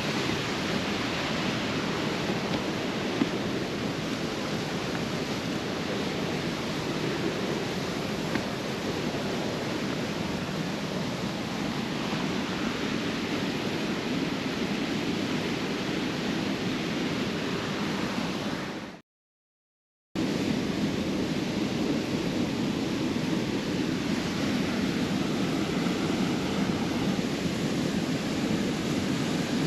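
Large waterfall rushing in a steady, loud roar of falling water. The sound drops out completely for about a second roughly two-thirds of the way through, then returns unchanged.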